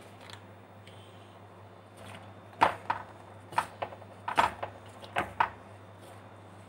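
A hand mixing dry wheat flour and cornflour with chopped onion in a steel bowl: quiet at first, then, from about two and a half seconds in, about seven short scattered taps and rustles of fingers and flour against the metal. A faint steady hum runs underneath.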